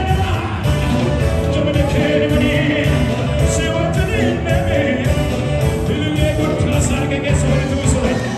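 Live church worship band playing: a man sings into a microphone over saxophone, electric guitars and a drum kit.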